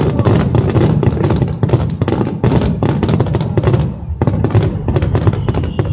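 A rapid barrage of fireworks bursting overhead: a dense, unbroken run of bangs over a deep rumble. Near the end a high whistle comes in and slides slowly down.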